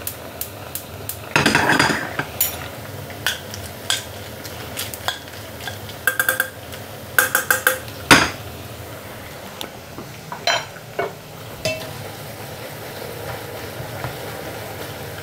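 Metal utensils clinking and tapping against pots and pans over a steady sizzle of frying, with a quick run of ringing taps about halfway through and one sharp knock just after.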